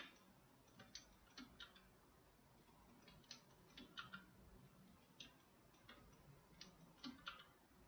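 Faint computer mouse clicks, a dozen or so at irregular intervals, over near silence.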